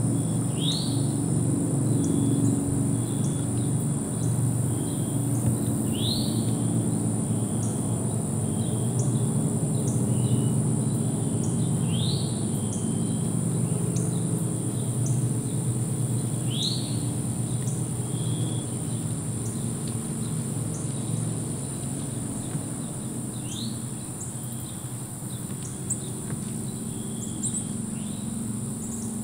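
Evening insect chorus: a steady high-pitched drone, with a short rising chirp repeating about every five seconds and a steady low rumble beneath.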